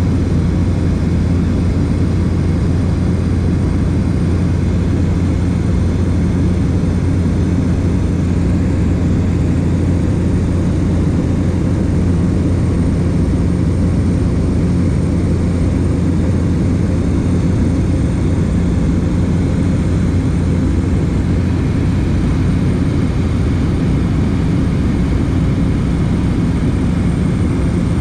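Light propeller plane's engine and propeller running steadily in flight, a low even drone heard from inside the cabin.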